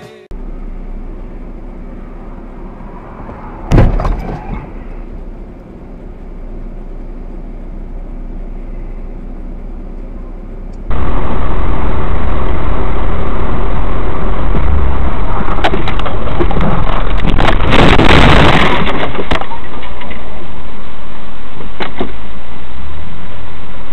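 Dashcam recording of a car on the road: steady road and engine noise, broken about four seconds in by one loud sudden bang, a collision. Then a much louder, distorted recording of vehicle noise, with a long crunching burst just past the middle and a few sharp clicks.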